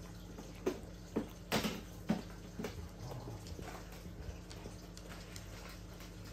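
Senior long-haired dachshund eating soft homemade food from a bowl: wet mouth and lapping noises, with several sharp clicks in the first three seconds, then quieter chewing.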